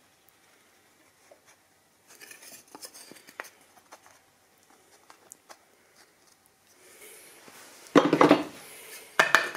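Light handling sounds: small clicks, taps and scrapes of a thin plywood piece against a metal surface. Near the end come two loud, brief rustling bursts from clothing brushing right over the camera.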